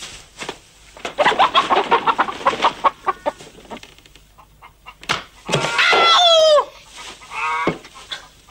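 Chickens clucking in a quick run of short calls, then one long drawn-out call that falls in pitch about two-thirds of the way in, and a shorter call after it.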